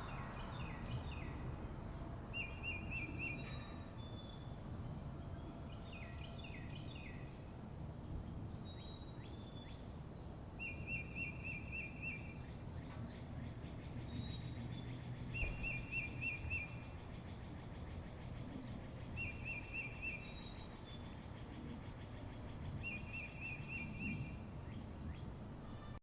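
Wild birds singing over a low, steady outdoor background rumble. One bird repeats a short, rapid trill several times, among scattered short chirps and falling whistles from others.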